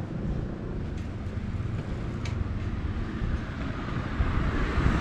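Street traffic noise under a low wind rumble on the microphone, with a passing car's tyre and engine noise growing louder near the end.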